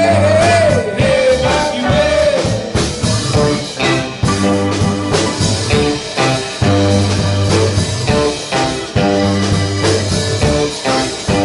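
Live band playing a song on electric guitars, bass, keyboard and drum kit, with a steady beat of repeated bass notes and drum hits. A held, wavering note sounds over the first couple of seconds.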